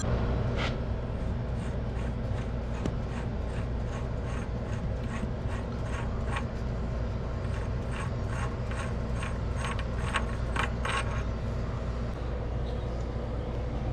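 Light, irregular metal-on-metal clicks and ticks from hand work on the tab-locked bearing retainer nut of a Massey Ferguson 85's PTO shaft, coming thicker a little past halfway. A steady low hum runs underneath.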